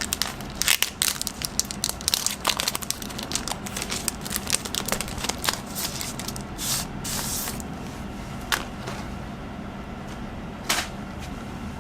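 Packaging crackling and crinkling as a pencil board is unwrapped by hand: rapid small clicks and rustles, then a longer tearing rustle about halfway through and a few separate clicks near the end.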